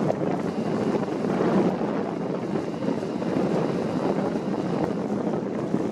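Wind blowing on the microphone: a steady, low rushing noise with no pitch or rhythm.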